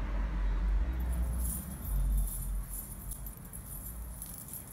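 Metal coins on a belly dance hip scarf jingling as the dancer walks, starting about a second in, over low bumps and rumble from her steps near the microphone.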